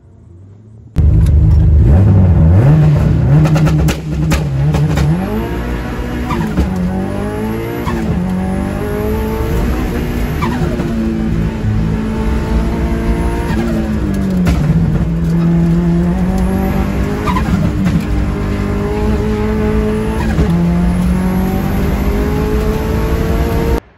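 Subaru GC8 rally car's flat-four engine at full throttle, heard from inside the car on a hill-climb run. It comes in loud and suddenly about a second in, and its pitch climbs and falls back several times.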